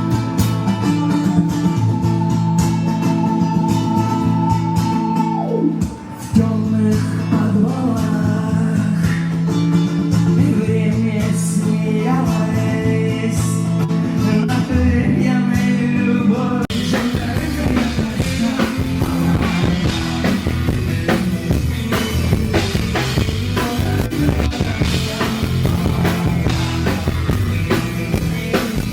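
Live rock band music with guitar and drums. About five seconds in, a held note slides down in pitch. Around sixteen seconds in, the music changes abruptly to a denser, fuller passage.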